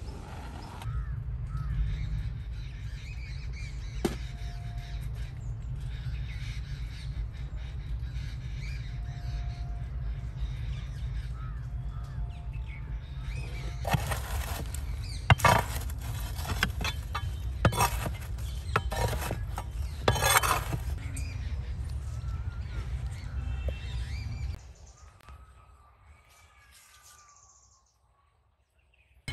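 A metal poker stirring and scraping glowing embers inside a clay oven, giving a run of sharp clinks, scrapes and crackles over several seconds. A steady low rumble of wind on the microphone lies under it, then cuts off to near silence near the end.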